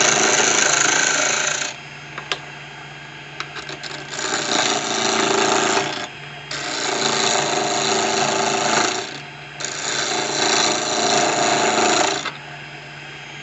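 Wood lathe motor running with a steady hum while a turning tool cuts a spinning cocobolo pen blank, heard as four long spells of loud cutting noise with short breaks between them and a few clicks in the first break.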